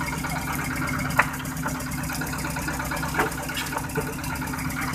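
Fishing boat's engine running steadily at low revs, a low, even hum. A few sharp knocks cut through it, the loudest about a second in, others around three and four seconds.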